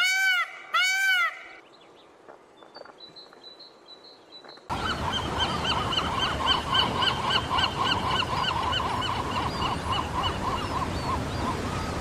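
Honking calls of a flock of birds. Two single honks come in the first second or so, then a quieter gap with faint high chirps. About five seconds in, a dense chorus of many overlapping honks starts and keeps going.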